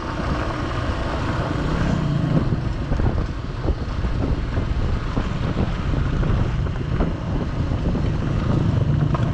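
Motorcycle engine running steadily while riding along a bumpy dirt road, with wind buffeting the microphone and scattered knocks from the rough surface.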